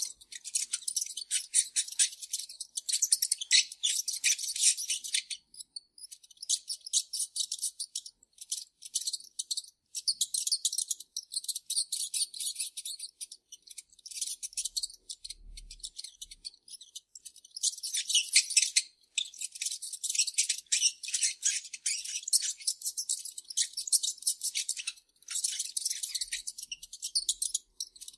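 Mice squeaking: rapid, very high-pitched chittering squeaks in bursts of a few seconds, with short pauses between them.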